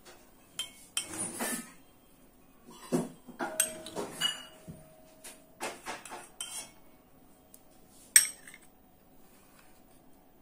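Steel spoon clinking and scraping against a steel bowl and a small serving bowl as syrup-soaked gulab jamuns are ladled out one at a time: about eight separate clinks, the sharpest a little past eight seconds. One clink, a bit after three seconds, leaves a bowl ringing for about two seconds.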